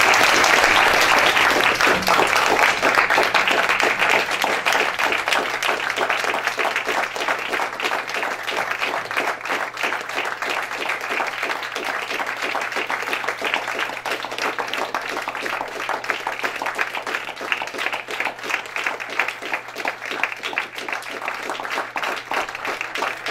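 Audience applauding: many hands clapping, loudest in the first few seconds, then easing a little and going on steadily.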